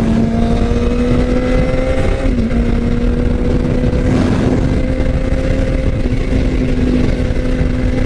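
Kawasaki ZX-6R's inline-four engine running at freeway cruising speed, its steady note climbing slowly, then dipping briefly about two seconds in before holding steady, over a heavy rush of wind and road noise on the bike-mounted microphone.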